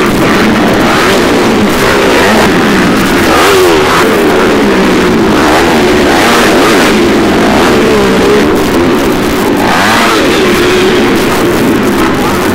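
Several motocross bike engines revving hard, their overlapping notes rising and falling as the riders take a jump on the dirt track.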